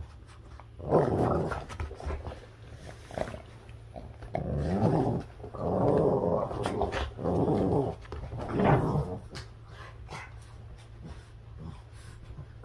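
Boston terriers play-growling during a tug of war over a rope toy, in several rasping bouts: one about a second in, a long stretch through the middle, and a last one around nine seconds, then quieter.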